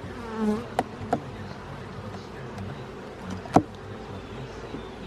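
Honey bees buzzing in a steady hum around an open hive, with a few sharp knocks, the loudest about three and a half seconds in.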